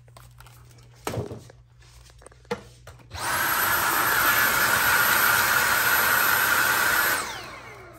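Cordless stick vacuum switched on about three seconds in, held to the wall to pick up the sanding dust from the patched holes. It runs steadily with a whine for about four seconds, then is switched off and winds down with a falling whine. A couple of light knocks come before it starts.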